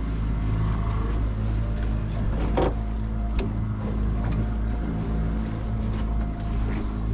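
Boat motor running steadily at slow trolling speed, a low even drone, with two short clicks near the middle.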